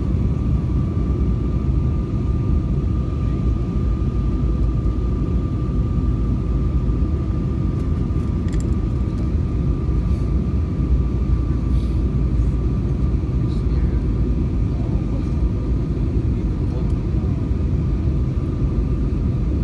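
Airliner cabin noise in flight: a steady low roar with a thin, steady whine held throughout.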